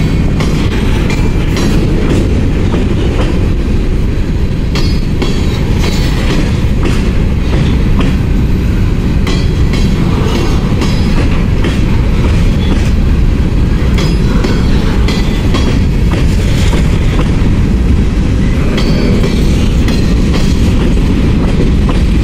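Freight train of covered hopper cars rolling through a road crossing: a loud, steady rumble of wheels on rail with irregular clicks and clacks as the wheels pass over rail joints and the crossing.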